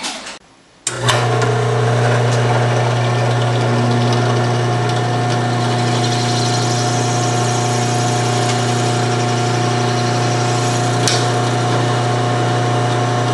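Bench drill press motor running with a steady low hum, coming in abruptly about a second in, as its bit is fed down into a PVC pipe cap held in vice grips.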